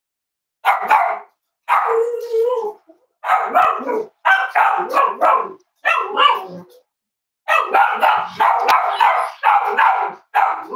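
Cavalier King Charles spaniel barking repeatedly in short runs of loud barks, with a brief pause about two-thirds of the way through and then a quicker string of barks.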